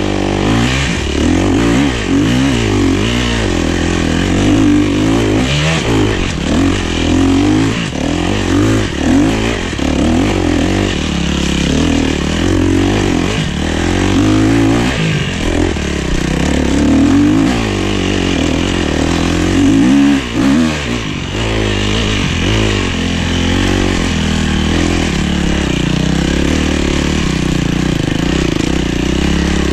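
KTM 250 SX-F dirt bike's single-cylinder four-stroke engine revving up and down under constant throttle changes as it is ridden up a rough trail, with a brief drop in revs about twenty seconds in.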